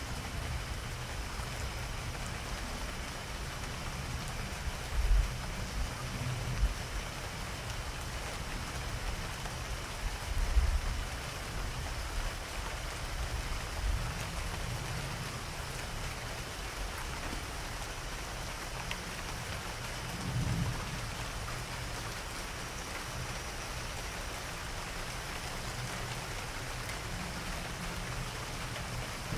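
Steady rain falling, with low rumbles of thunder swelling and fading several times, the strongest about five, ten and twenty seconds in.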